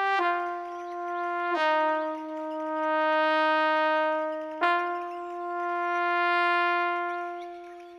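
Brass-like lead sound played on a keyboard: a slow solo melody of long held notes, stepping down twice and then back up about halfway through, each note swelling and fading.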